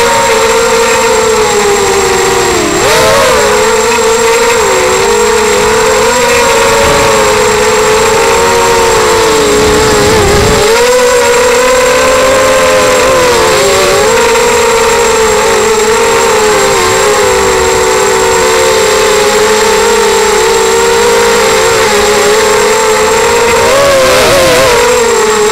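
ZMR250 racing quadcopter's brushless motors and propellers whining in flight, several close tones wavering up and down with the throttle and dipping sharply about three seconds in and again near the end. A brief low rumble about ten seconds in, and a thin steady high whistle throughout.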